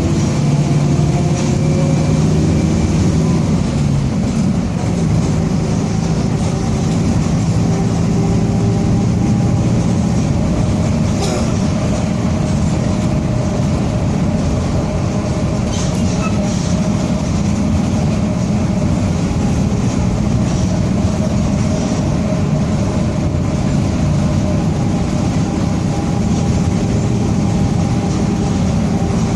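Mercedes-Benz OF-1722M city bus under way, its engine running steadily under a whine from the differential that drifts slowly up and down in pitch with road speed: the differential is growling.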